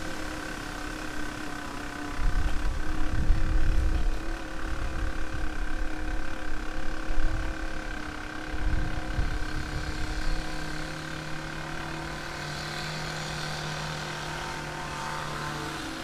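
Ninebot One electric unicycle's hub motor running with a steady whine of several tones while riding. Wind buffets the microphone in gusts through the first half. A lower steady hum joins about ten seconds in and stops just before the end.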